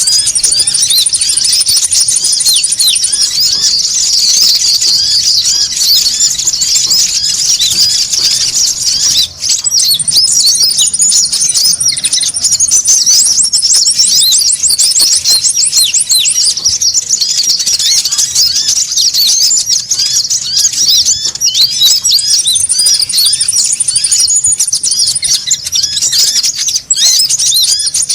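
Dense, unbroken chatter of many small konin birds: rapid high-pitched chirps and squeaks overlapping without pause, with a very fast, thin, high trill coming in at times, a lure recording for attracting wild konin.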